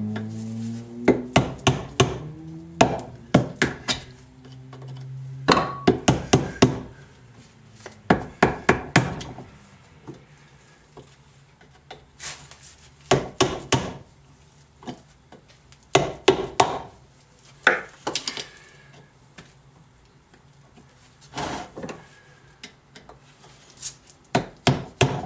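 Hammer tapping a screwdriver driven behind the rubber tailshaft seal of an NV3500 five-speed transmission to pry the seal out. The taps come in quick bursts of several sharp knocks, with pauses between.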